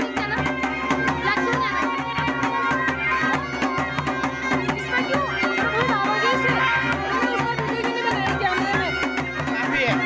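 Mashakbeen (Himalayan folk bagpipes) playing a winding melody over a steady drone, with a drum beating a fast, steady rhythm underneath.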